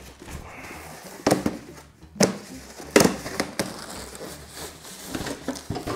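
Polystyrene foam packing and a plastic exhaust hose being handled: crackling and creaking with about four sharp knocks as the hose is pulled out of the packing.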